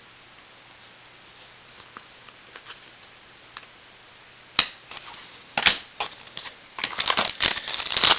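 Baseball cards and their packaging being handled by hand. After a quiet stretch of faint hiss there are two sharp clicks about four and a half and five and a half seconds in, then a run of crinkling and rustling near the end.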